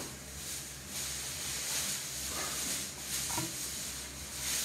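Close-up chewing of a mouthful of chocolate-coated ice cream bar, heard as a steady, crackly hiss.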